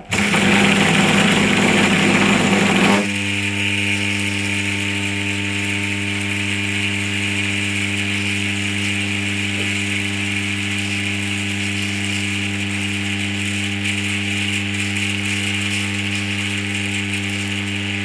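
Three-phase Hotpoint washing machine induction motor switched on from single-phase mains through a 4 microfarad capacitor. It starts loud and rough, and after about three seconds settles into a steady electric hum. On this capacitor the motor is struggling: the owner sees the first signs of smoke and judges it is just not working.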